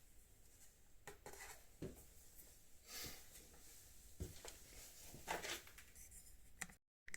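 Faint clicks, knocks and rubbing of parts being handled during motorcycle fairing reassembly, a handful of small sounds spread a second or so apart, with a brief dead-silent gap near the end.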